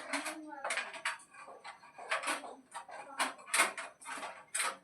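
Repeated clicks and clatter of small hard objects, with a voice at times.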